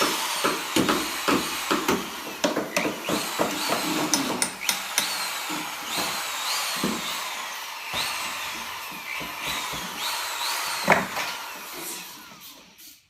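A handheld power tool run in short repeated bursts, its motor whining up in pitch with each pull of the trigger, with sharp clicks and knocks between bursts; it fades out near the end.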